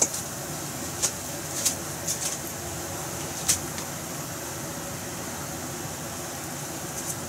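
Food deep-frying in hot oil in a frying pan: a steady sizzle with several sharp crackling pops in the first few seconds, then mostly an even sizzle.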